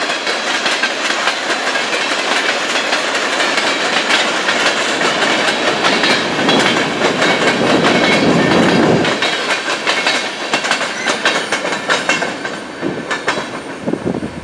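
Freight cars of a passing CN manifest train rolling by, steel wheels clicking over the rail joints in a steady clickety-clack, loudest about halfway through and easing a little near the end.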